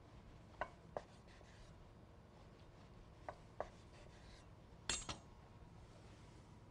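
Chef's knife slicing through a ball of fresh mozzarella, the blade tapping the wooden cutting board at the end of each cut: six short, sharp taps in three pairs, the loudest pair about five seconds in.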